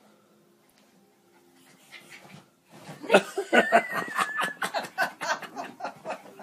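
Quiet for about two and a half seconds, then loud, rapid laughter from a person, in quick bursts of several a second, with a brief high squeal in the middle.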